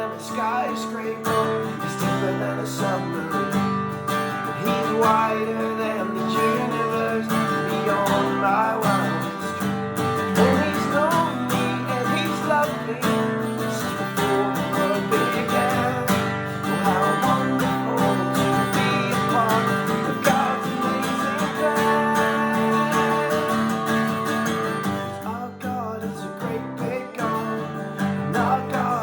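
Music led by a strummed acoustic guitar.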